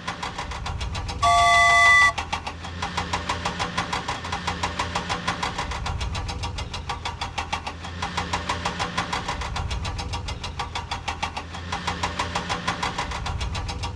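Cartoon sound effect of a motor vehicle engine running with a quick, even chug. A short, loud horn-like beep sounds about a second in.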